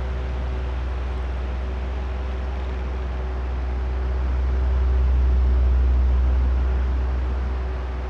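Oscillating electric fan running: a steady rush of air over a low rumble, with a faint steady motor hum. It swells louder from about halfway through and eases back near the end as the head turns toward and then away.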